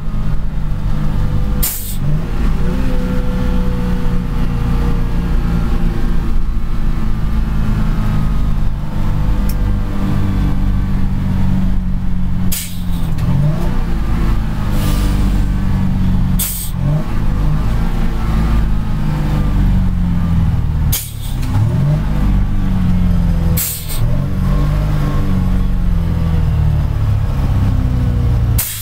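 Foden Mk 6 two-stroke diesel engine pulling a 1967 Foden S21 eight-wheel lorry, heard from inside the cab. The steady engine note breaks about six times at gear changes, each marked by a brief sharp sound, with the revs dropping and then climbing again.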